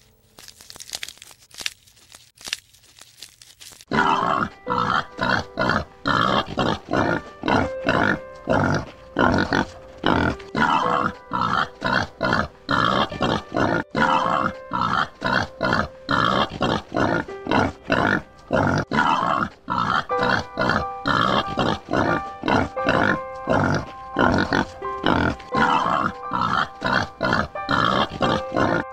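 Background music with a fast, even pulsing beat and sustained tones. It comes in loud about four seconds in, after a few seconds of faint sound.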